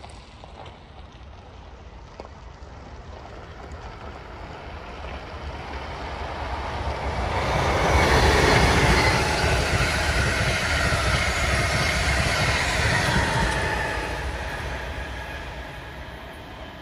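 Amtrak Acela Express high-speed electric trainset passing at speed: a rushing rumble that swells over several seconds, stays loud for about five seconds as the train goes by, with a faint whine in it, then fades as it recedes.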